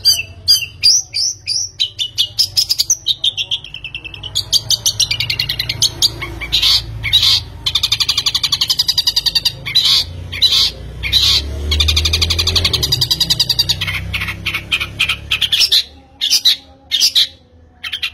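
A bird singing loudly in fast trills and rapid repeated chirps, breaking into short separate bursts near the end.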